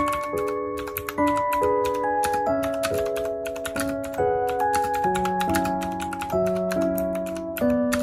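Fast, clicky typing on a Mofii Candy mechanical keyboard with blue switches: a dense run of sharp key clicks that sounds like a typewriter. Soft background music with sustained notes plays underneath.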